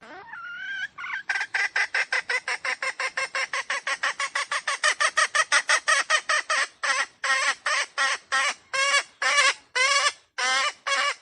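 Red junglefowl calling in a rapid series of short, clucking notes, about seven a second, that slow to two or three a second in the second half.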